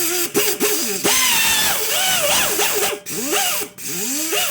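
A handheld power buffer grinding the inner liner of a tubeless car tyre around the puncture, roughing the rubber ready for the patch. It runs loud and harsh, its pitch wavering under pressure, and it briefly drops out twice about three seconds in.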